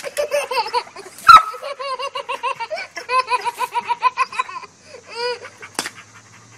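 A toddler laughing in quick, rhythmic giggles, several a second, that die away near the end, with a single sharp knock about a second in.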